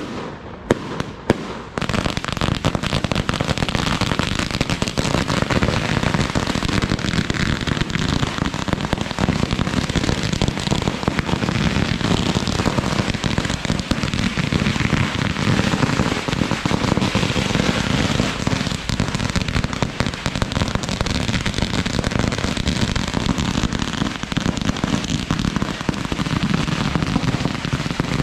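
Pyrotechnics going off: a few sharp bangs about a second in, then a dense, unbroken crackle of firecrackers and burning flares.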